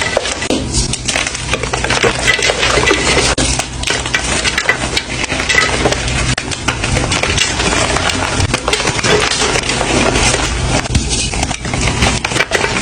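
Gym chalk being crushed and crumbled: a continuous dense crunching with many small crackling snaps.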